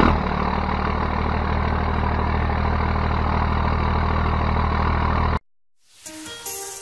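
First-generation Cummins 12-valve diesel truck engine idling steadily, then cut off abruptly about five seconds in.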